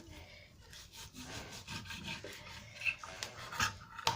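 A kitchen knife sawing back and forth through cold, firm steak on a cutting board, cutting it into small pieces. There are scraping strokes, with a couple of sharp knocks of the blade on the board near the end.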